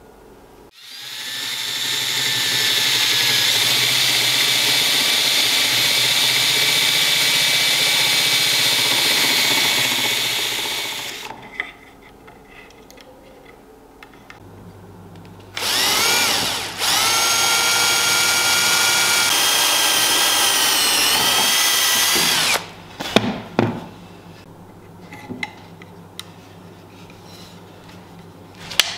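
Cordless drill boring into an oak crossbow stock. It spins up and runs steadily for about ten seconds, then gives a short burst and a second run of about six seconds whose pitch sags under load. A few light knocks follow as the work is handled.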